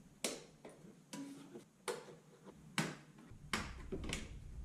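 Plastic pop clips around the blower motor's ring snapping loose one at a time as they are pried off. There are about six sharp clicks, each a little under a second apart.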